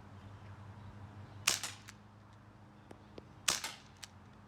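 HFC full-plastic non-blowback 1911 airsoft pistol firing two shots about two seconds apart.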